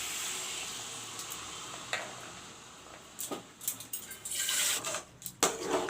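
Water poured into a pan of frying chicken curry: a steady hiss that fades away over the first three seconds. Then a few sharp knocks and scrapes of a utensil against the pan.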